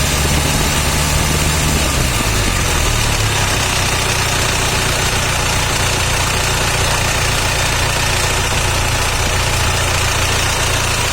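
1997 Isuzu Panther's 2.5-litre diesel engine idling steadily.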